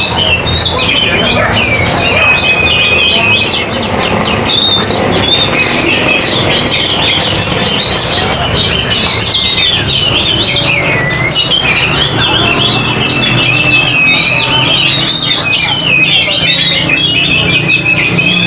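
Oriental magpie-robins (kacer) singing in competition, several at once: a dense, continuous stream of varied whistles and trills. A low steady hum runs underneath, stronger in the second half.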